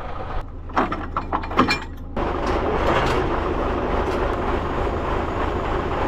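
A John Deere 6200 tractor's engine idling steadily. In the first two seconds there is a run of sharp metallic clicks and knocks as hydraulic hose couplings are pushed on. From about two seconds in, a steadier, louder running noise sits over the engine.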